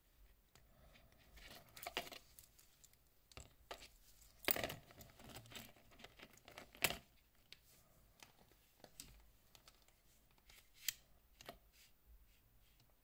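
Quiet handling noise from cloth-gloved hands turning a wristwatch on a steel link bracelet and setting it down: fabric rustling and rubbing with scattered clicks and light knocks, the loudest about four and a half and seven seconds in.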